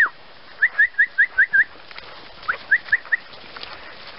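A person whistling a quick series of short rising notes, six in about a second, then four more after a pause: a recall whistle to call a puppy in.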